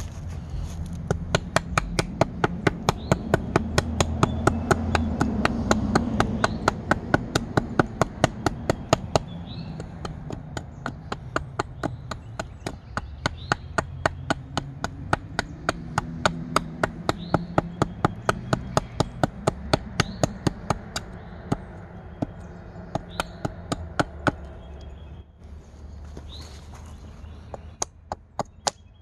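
Carving hatchet chopping a cherry spoon blank, quick light strokes at about three a second, pausing briefly near the end.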